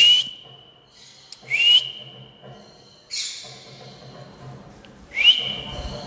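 Whistling: three whistles, each a quick upward slide that levels off into one held note for about a second, with short harsh noisy bursts around them.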